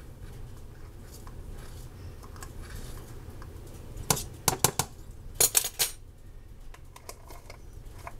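Metal measuring spoon clinking against a small spice jar and the mixing cup while dill weed is measured out: a few light clinks about four seconds in, then a quick cluster of them a second later.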